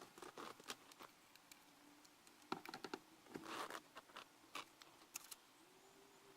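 Faint scattered clicks and taps with a couple of brief soft rustles, from parts and tools being handled while a steering wheel is refitted.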